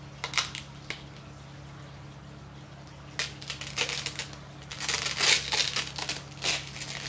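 Sticky tape being picked at and peeled off a small plastic tub: a few sharp crackles at first, then a run of crackling and ripping from about three seconds in that grows busier toward the end.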